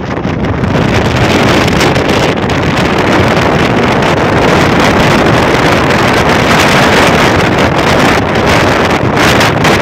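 Loud, steady rushing noise of an express train running at speed, heard from an open coach door: wheel-on-rail rumble mixed with wind buffeting the microphone. It swells over the first second, then holds steady.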